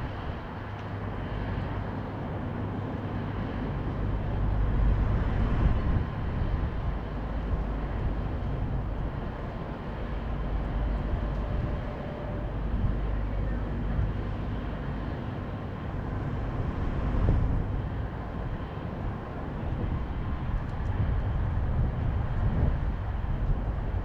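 Steady low rumble of downtown city noise, rising and falling gently, with no sharp events.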